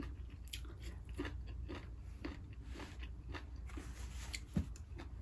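Close-miked chewing of a mouthful of rice and side dishes: soft wet clicks and light crunches about two a second, with one louder click about four and a half seconds in.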